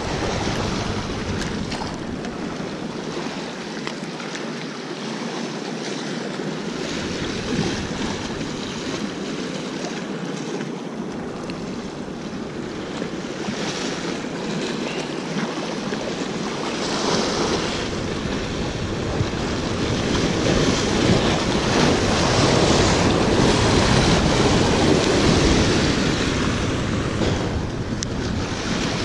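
Surf washing and splashing against the boulders of a rock jetty, with wind buffeting the microphone; the rushing grows louder in the second half.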